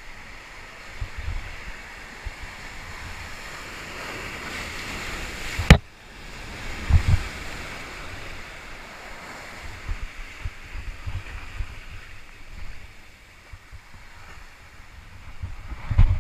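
Sea surf surging and breaking against the concrete blocks of a breakwater, a steady rushing hiss that swells and ends with a sharp click about six seconds in. Gusts of wind thump low on the microphone, most strongly about seven seconds in and near the end.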